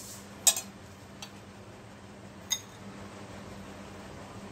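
Steel kitchen utensils clinking: a sharp clink about half a second in, a faint tap about a second in, and a ringing metallic clink about two and a half seconds in, over a low steady hum.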